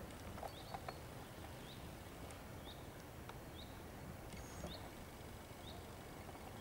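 A small bird repeating a short, high chirp about once a second over a steady low background rumble, with a few light clicks in the first second.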